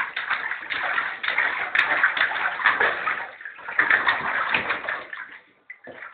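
A small child slapping bathwater with his hands: rapid, continuous splashing with a short pause about three and a half seconds in, thinning to a few separate splashes near the end.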